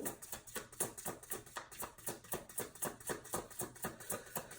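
A deck of tarot cards being shuffled by hand: a quick, even patter of card clicks, about six or seven a second.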